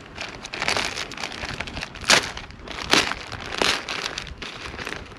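Plastic mailing bag being handled and torn open, the film crinkling and rustling, with three sharper, louder crackles about two, three and three and a half seconds in.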